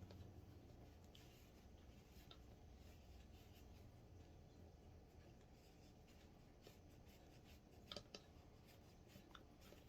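Very faint rubbing of a cleaning cloth over a revolver, wiping off solvent, with a few small metallic ticks and one slightly louder tick about eight seconds in.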